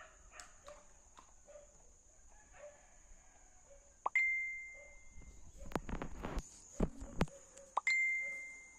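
A clear, bell-like ding strikes twice, about four seconds apart, each ringing out and fading over about a second, over a steady high insect buzz. Around six seconds in there is a burst of rumbling wind or handling noise with a few knocks.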